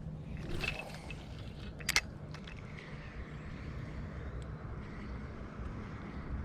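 Fishing rod and reel being cast and worked: a brief swish under a second in and a sharp click about two seconds in, over a steady faint outdoor hiss.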